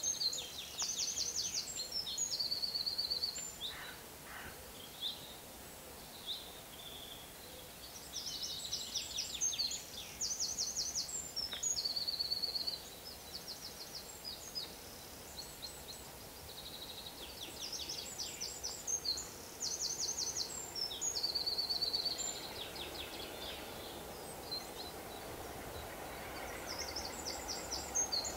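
A songbird singing: a loud phrase of rapid, high trills, repeated four times about every nine seconds. In the last few seconds a faint low hum builds as a diesel locomotive approaches from afar.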